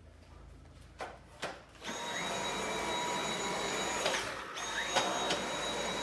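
Dyson V8 cordless stick vacuum switched on about two seconds in, its motor spinning up to a steady whine over rushing air. It cuts out for about half a second just after four seconds as the trigger is let go, then spins up and runs again.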